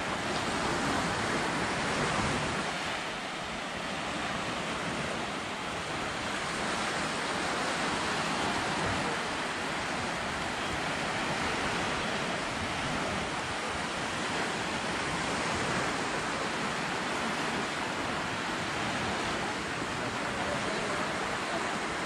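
Small sea waves breaking and washing up onto a sandy beach, a steady surf wash.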